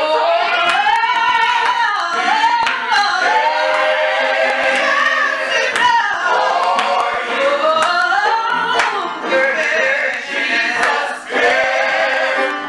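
Small gospel choir of women's voices singing together into microphones, the melody rising and falling in long sustained phrases, with scattered hand claps.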